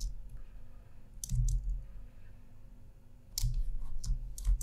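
A few short, sharp clicks and taps at a computer desk, from drawing input and shortcut keys, in two clusters: one about a second in, and a run of four from about three and a half seconds on. A faint steady hum sits underneath.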